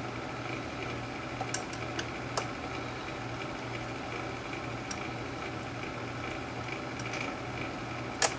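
A few light clicks of small parts being handled and fitted by hand into a reel-to-reel tape deck's transport mechanism, the sharpest near the end, over a steady low hum.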